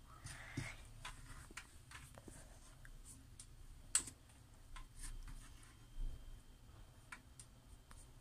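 Faint scattered clicks and soft scraping of a kitchen utensil against a dish while fish fillets are turned in flour, with one sharper click about four seconds in.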